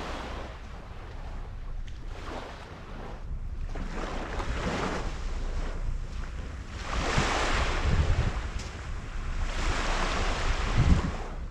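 Sea waves washing onto a sandy beach, the rush swelling and ebbing, with two bigger surges about seven and ten seconds in. Strong wind buffets the microphone with a low rumble.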